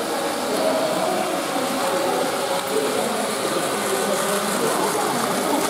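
Steady whirring and rattling of battery-powered Plarail toy trains running on plastic track, over faint indistinct voices.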